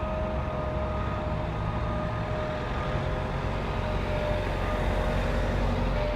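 Vehicle running, a steady low rumble with a faint steady whine over it.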